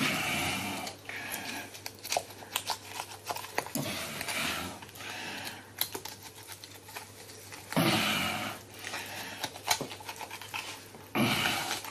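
Butcher's knife cutting through a pig's head at the corners of the mouth: scattered clicks and scrapes of the blade, with longer scraping sounds at the start, about eight seconds in and near the end.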